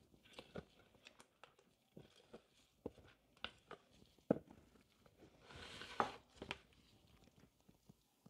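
Silicone spatula stirring and scraping thick cold-process soap batter in a plastic jug, with faint scattered clicks and taps against the jug. There is a brief rustling scrape about six seconds in.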